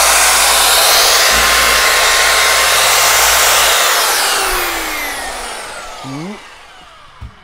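Corded electric drill spinning a brass wire brush against the edge of a steel flywheel, scrubbing off rust. About four seconds in the drill is switched off and winds down with a falling whine.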